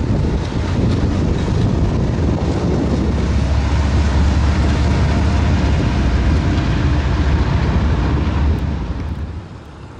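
GE wide-cab diesel-electric locomotive running light past at close range, its engine a steady deep rumble mixed with wheel and rail noise. It fades away over the last second or so as it moves off.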